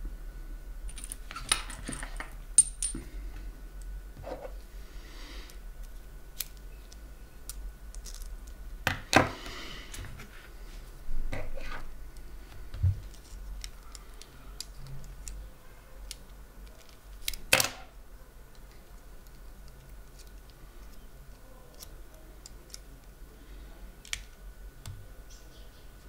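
Fratelli Facchinetti half euro cylinder lock being taken apart by hand: scattered small metallic clicks, clinks and rattles of its parts, with a few louder clacks spread through.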